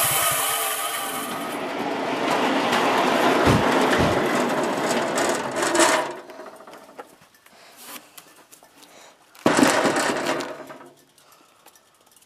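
Small gasoline engine of a portable bandsaw sawmill running at speed while the blade cuts through a log, a dense mechanical noise that cuts off suddenly about six seconds in. A brief loud rush of noise follows near ten seconds.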